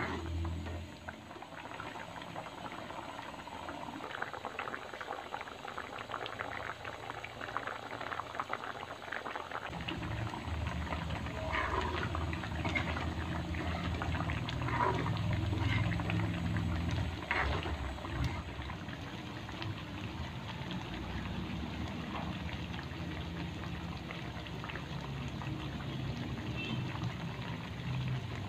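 Thick curry gravy bubbling and spluttering as it simmers and reduces in an aluminium wok, with a spatula scraping through it now and then. A deeper low rumble joins the bubbling about ten seconds in.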